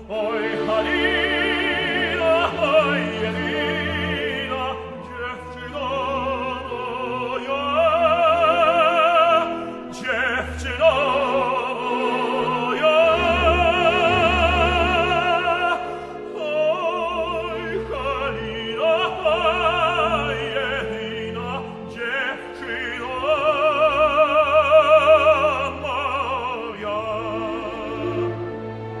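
Operatic tenor singing long held phrases with wide vibrato over a symphony orchestra. The loudest held phrase comes about three quarters of the way in.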